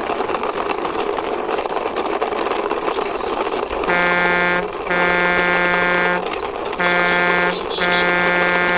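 Plastic toy tractor truck pushed by hand, its wheels rolling and rattling over a hard surface. From about four seconds in, a buzzy horn tone sounds in repeated blasts of about a second each with short gaps.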